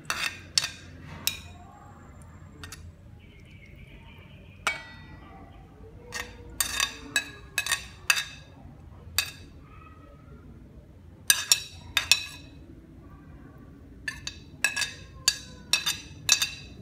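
Kitchen utensils clinking against dishes: sharp, ringing taps that come singly and then in irregular clusters of several in quick succession.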